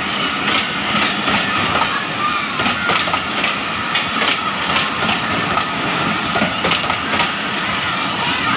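Passenger coaches rolling past close by: the wheels clack at regular beats over the rail joints above a steady rumble of the running gear.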